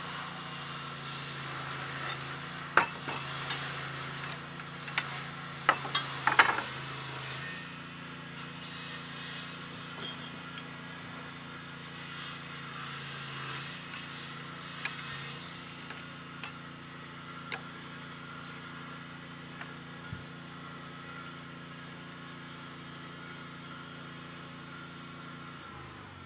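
Metal clinks and knocks of steel bar being handled and worked on a hand cold-forging bending machine: a cluster of sharp strikes in the first seven seconds, then a few scattered ones, over a steady low hum.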